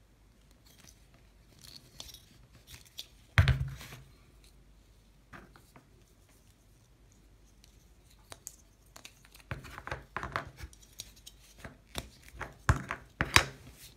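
Plastic Play-Doh cans, caps and stand handled by hand: scattered clicks, knocks and scrapes, with a sharp knock about three and a half seconds in and quick runs of clicks in the last few seconds.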